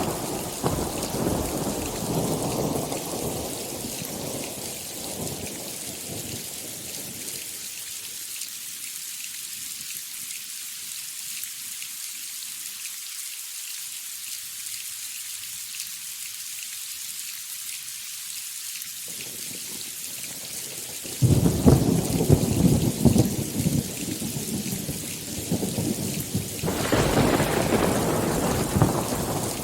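Thunderstorm: steady rain hiss throughout, with a thunder rumble dying away over the first several seconds, then a sudden loud thunderclap about two-thirds of the way through that rolls on for several seconds, and another rumble of thunder near the end.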